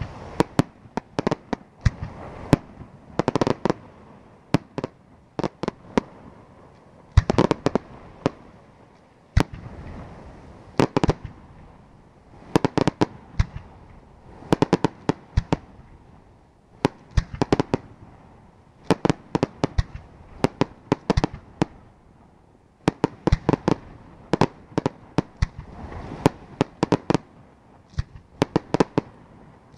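Aerial firework shells bursting in rapid clusters of sharp bangs, each cluster followed by a rumbling echo, with short lulls between volleys.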